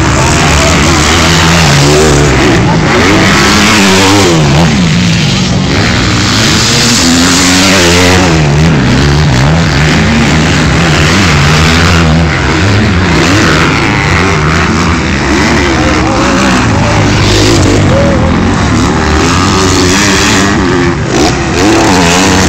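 Several motocross dirt bikes' engines revving up and down as the bikes race over a dirt track, their pitch rising and falling again and again with the throttle.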